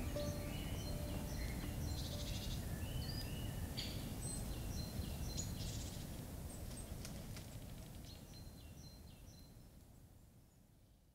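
Small birds chirping and calling in short, repeated notes over a steady low background rumble, the whole soundscape fading out gradually over the last few seconds.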